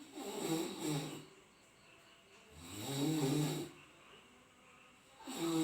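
A person snoring loudly: long, regular snores about every two and a half seconds, three in all, the last starting near the end.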